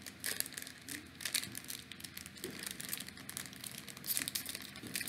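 Plastic snack pouch of frosted animal cookies crinkling as fingers work at its top and tear it open: a dense run of irregular crackles.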